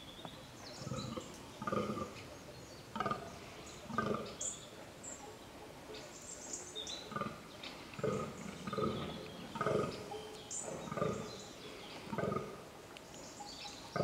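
Fallow deer buck groaning in the rut: a series of short, low grunts, about one a second, with a pause of a few seconds midway. Small birds chirp faintly above them.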